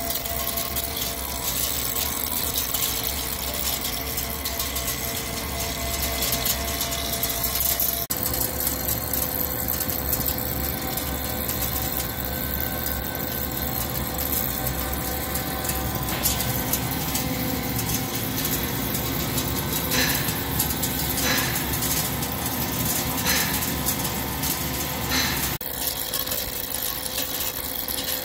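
Heavy CNC lathe (Hankook Protec 9-NC) cutting a steel forging: the spindle runs steadily while the carbide insert takes a heavy roughing cut, with a few brief sharp ticks late on from breaking chips. The sound changes abruptly about 8 seconds in and again near the end.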